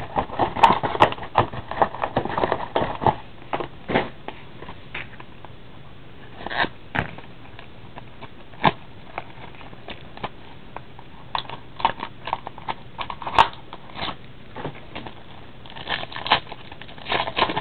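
Crackling and crinkling of a trading-card pack's shiny plastic wrapper as it is torn open and handled, dense for the first three seconds, then scattered crackles.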